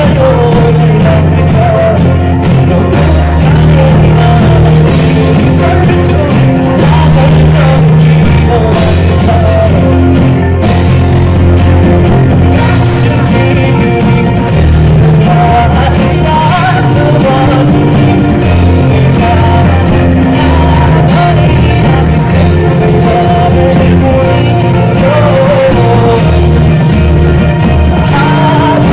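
Live rock band playing at full volume: a man singing lead over strummed acoustic guitar, electric guitar, bass guitar, keyboard and drum kit.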